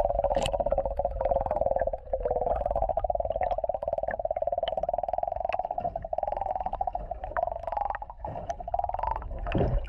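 Steady buzzing hum, heard underwater through a submerged camera, with a brief break about eight seconds in.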